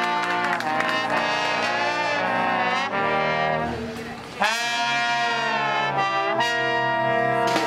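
Marching brass band of trumpets, trombones and sousaphones playing a tune in full harmony. A held chord fades out a little before halfway, and the whole band comes back in with a sharp, loud entry.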